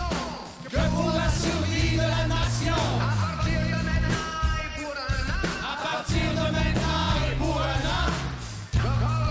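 Live band music with several voices singing over a strong, held bass line; the sound dips briefly just after the start and again near the end.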